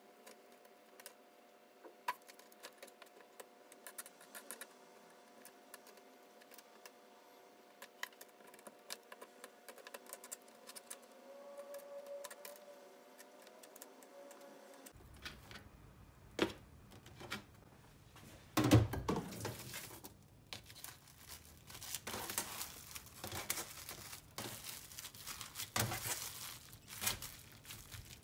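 Soft handling clicks and taps over a low steady hum as raw beef slices are rolled around vegetable sticks. From about halfway, plastic cling film crinkles and tears as it is pulled off, torn and wrapped and pressed around the beef rolls, the loudest a sharp rip a few seconds after the crinkling starts.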